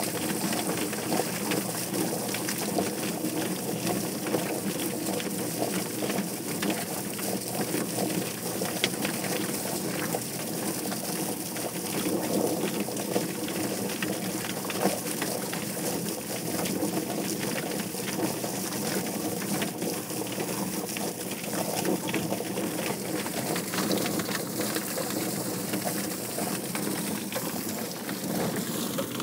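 Drum-style chicken plucker running, the bird tumbling and slapping against its rubber fingers as its feathers are stripped. A hose nozzle sprays water into the tub, adding a steady rush with many small clicks and spatters.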